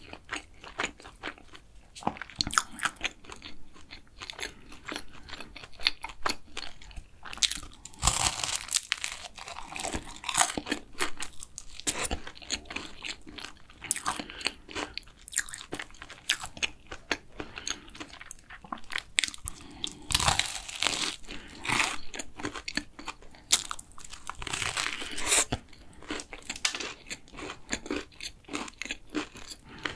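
Close-miked chewing and crunching of a flaky custard cruffin, its crisp laminated pastry crackling between the teeth, with several louder bursts of crunching as fresh bites are taken.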